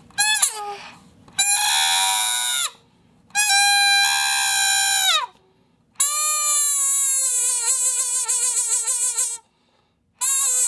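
Foley 'animal speech' creature sound effect: a string of five bleat-like, pitched calls, the first short and several sliding down in pitch at their ends. The last two are longer and warble, as if the creature were talking.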